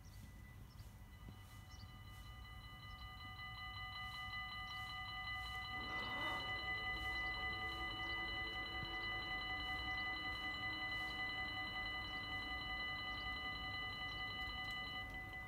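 Dutch level-crossing warning bells ringing rapidly, several bells at different pitches, with more joining in about a second in. A low hum comes in about six seconds in as the barrier booms swing down, and near the end some of the bells stop.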